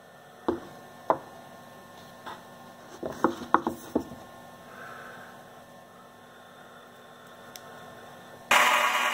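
Plywood jaw blocks being handled and set against a plywood vise base: a few light wooden knocks and clacks, with a quick run of them about three to four seconds in, over a faint steady hum. Near the end a loud, even, hiss-like noise starts abruptly.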